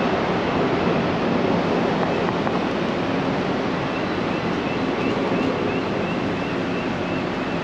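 Steady rush of city street traffic and construction-site noise. From about halfway in, a faint high chirp repeats about three times a second.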